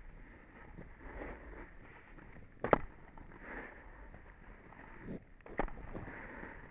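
Snowboard edges scraping over packed snow in swells about once a second, with wind on the microphone. A sharp knock about two and a half seconds in is the loudest sound, and a smaller knock comes near the end.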